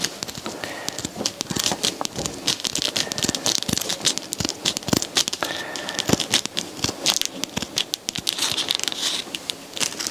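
Scissors snipping through super heavy duty Velcro tape, a run of short crisp cuts mixed with the crinkling and crackling of the tape and its backing as it is handled.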